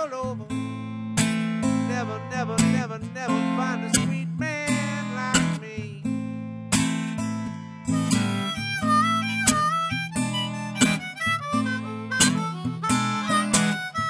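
Instrumental break of a slow blues ballad: an acoustic guitar picks a solo with bent notes, and about eight seconds in a harmonica comes in and plays over the guitar.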